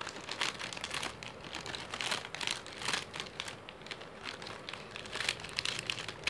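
Foil-lined plastic snack packet crinkling in irregular crackles as it is handled and cut open with scissors.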